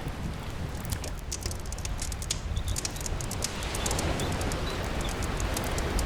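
Wood fire crackling with frequent sharp pops over steady rain and a low, continuous rumble of surf.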